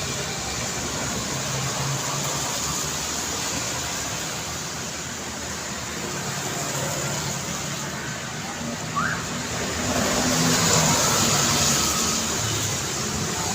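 Steady traffic noise of cars and motorbikes on a busy city road, a running hiss of tyres and engine hum. A brief rising chirp comes about nine seconds in, and a vehicle passes louder a second later.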